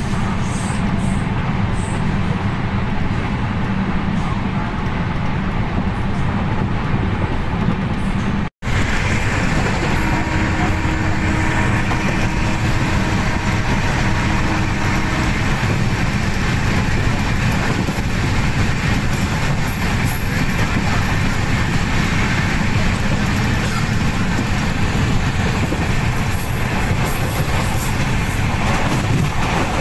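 Passenger train coach running at speed on the rails, heard from inside at an open window: a steady rumble of wheels on track with light clickety-clack, cutting out for an instant about eight and a half seconds in.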